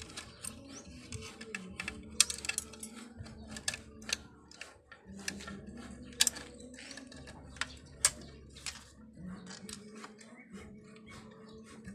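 Irregular metal clicks and taps from hands handling a bicycle's brake lever and cable fittings, with a few sharper clicks standing out, over faint background music.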